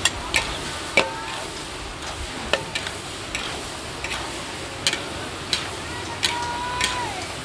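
Metal ladle and spatula clanking and scraping against a large metal wok as shrimp and long beans are stir-fried in chili paste, in sharp, irregular strokes over a steady sizzle. The scraping utensil briefly rings or squeals twice, about a second in and again near the end.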